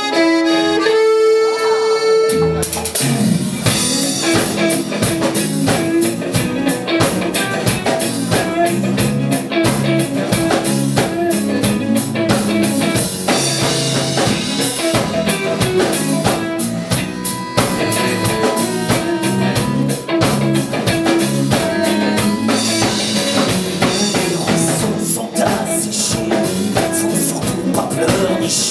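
Live band music. An accordion plays held chords alone, then drums, electric guitar and bass guitar come in about two and a half seconds in with a steady beat.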